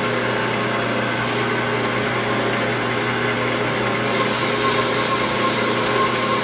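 Metal lathe running while a lathe tool faces off the end of a pipe plugged with lead alloy: a steady motor and gear hum, with a high hiss joining about four seconds in.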